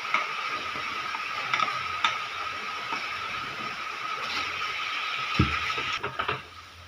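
Induction cooktop running with a steady fan hum and a thin whine, under light scrapes and taps of a spatula scraping a crushed coconut mix out of a steel bowl into a non-stick pan. There is a dull knock about five and a half seconds in, and the hum drops away near the end.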